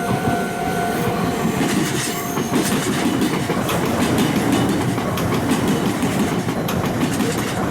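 Meitetsu electric train passing, a steady rumble with its wheels clattering over rail joints and the junction's points in a quick run of clicks from about two seconds in. A high steady squeal dies away about a second in.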